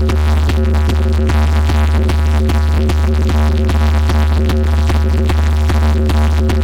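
Electronic dance music with a heavy, continuous deep bass and a steady, fast drum-machine beat.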